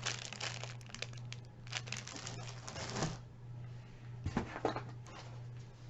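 Packaging rustling and crinkling as items are handled and unwrapped from a mystery box, in two spells over the first three seconds, followed by a few light clicks.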